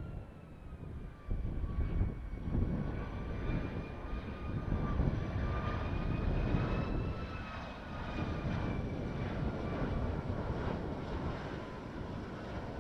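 Boeing 757-200's Rolls-Royce RB211 turbofans on final approach: a low rumble with a steady whine on top that wavers slightly in pitch.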